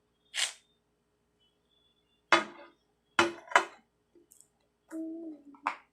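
Fluffy slime being squeezed and stretched by hand, giving about five short, sharp snaps as air pockets pop, with a brief pitched sound about five seconds in.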